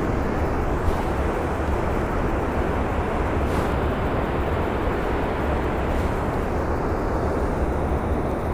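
Steady rushing of water pouring over a river dam's spillway gates, an even roar with a deep low rumble.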